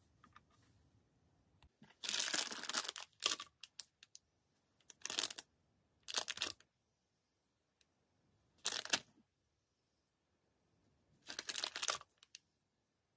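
Crinkling of a plastic snack packet being handled, in several short bursts, the last as it is set down on the glass scale.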